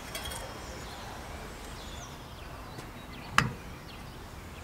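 Quiet outdoor background with a faint click or two near the start. About three and a half seconds in there is one sharp metallic clink from a stainless steel serving dish of grilled prawns knocking on metal.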